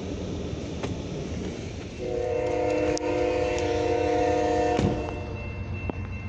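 Freight train passing a grade crossing with a steady low rumble; about two seconds in, a diesel locomotive's air horn sounds one long chord-like blast of about three seconds that stops abruptly with a sharp knock.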